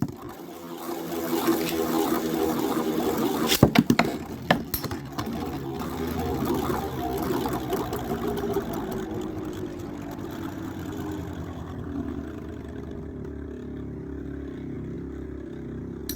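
Two Beyblade spinning tops, Storm Pegasis 105RF and Thermal Pisces T125ES, whirring and grinding as they spin against each other in a stadium. They clash sharply a few times about four seconds in, and the whirr slowly fades as they lose spin.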